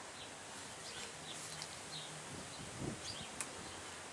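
A flying insect buzzing briefly past the microphone, over faint bird chirps and steady outdoor background noise.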